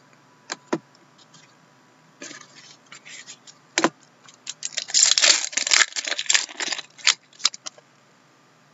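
Trading cards being handled and flipped through by hand: dry clicks and snaps of card edges, with a dense run of rustling and scraping as the cards slide over each other about five to seven seconds in.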